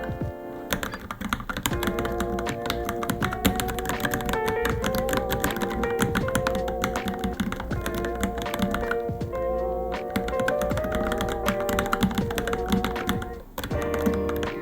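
Rapid, irregular keystrokes typed on a Varmilo Minilo keyboard, heard over background music with sustained, wavering melody notes. The music briefly drops out about thirteen seconds in.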